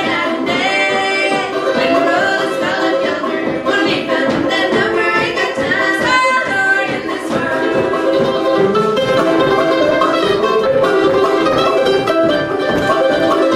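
Old-time string band playing live: two women singing in harmony over banjo and mandolin. The voices drop out around halfway and the plucked strings carry on.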